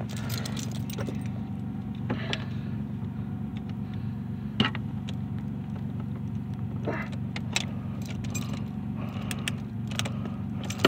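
Keys jangling on a ring, with scattered small metal clicks as keys are handled at the ignition lock cylinder, over a steady low hum.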